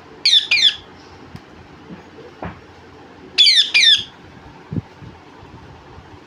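Pet parrot squawking: a pair of harsh, sweeping calls about half a second in, then a burst of several more about three and a half seconds in.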